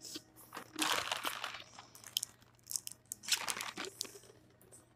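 A person chewing crunchy food close to the microphone, in two loud spells of crunching: one about a second in and one past three seconds, with small mouth clicks between.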